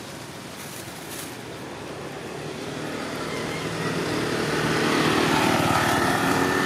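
Motor scooter engine approaching along the road, growing steadily louder over the last few seconds.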